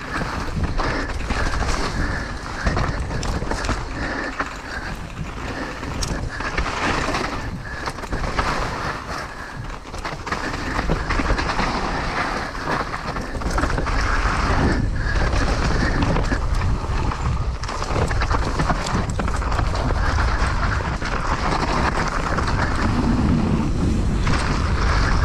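Downhill mountain bike riding fast down a dirt trail: wind buffeting the microphone, with rolling tyre and trail noise and frequent knocks and rattles from the bike over rough ground.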